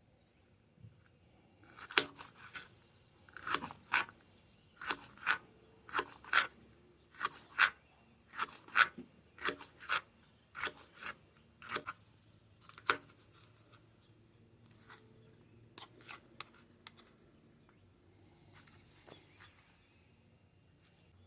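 A series of sharp cracks or knocks, about one or two a second, that stops about thirteen seconds in, followed by a few fainter ticks.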